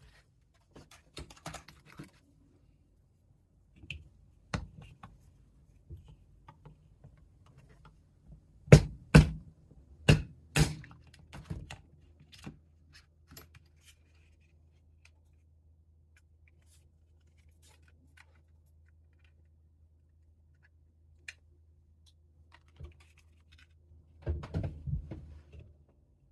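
Small sharp clicks and taps of pistol parts being handled and the frame pin worked out, with four loud sharp taps about nine to eleven seconds in, a long quiet stretch, and a cluster of clicks near the end.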